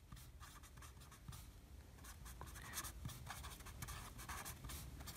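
Faint scratching of a pen tip across paper in many short strokes as handwritten text is written.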